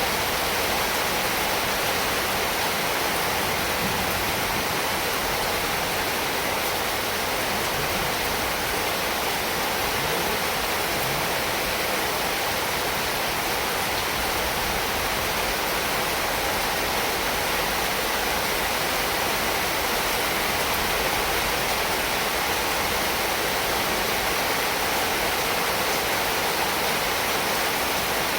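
Heavy rain falling steadily, an even hiss of rainfall with no breaks or single drops standing out.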